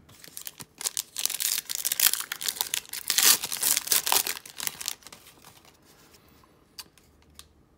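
Foil wrapper of an In The Game Heroes and Prospects hockey card pack being torn open and crinkled: a dense crackling that lasts about five seconds, followed by a few faint clicks as the cards are handled.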